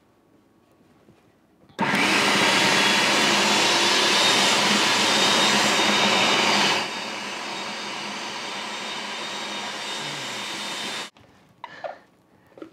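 Hamilton Beach food processor running, its blade chopping raw cauliflower into rice-sized bits. It starts about two seconds in, runs loud for about five seconds, then drops to a quieter run and stops suddenly near the end.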